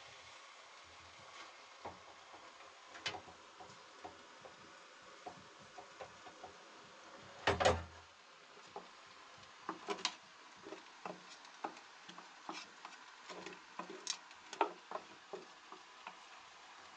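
Scattered, irregular knocks and clatter of hands-on building work, with a louder burst of knocking a little before halfway, over a low background hiss.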